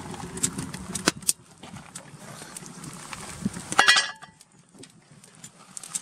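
A pot of chicken and vegetables boiling hard over a wood fire, with irregular crackles and pops. About four seconds in comes a short ringing metallic clank, the loudest sound, after which it goes quieter.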